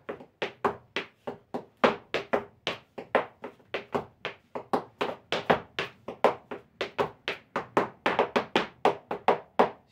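Argentine zapateo footwork in boots: a steady run of heel strikes and sole brushes (taco, raspo) on a hard floor, about four a second, in the seven-strike 'Bonito' mudanza pattern. The strikes come a little closer together near the end.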